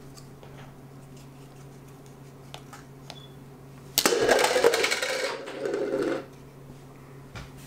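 Handling noise from a small laser-cut wooden toy cannon: a few faint clicks, then about four seconds in a sudden loud burst of rattling and scraping as its springy wooden trigger is pressed down. The burst lasts a little over a second, and a shorter second one follows.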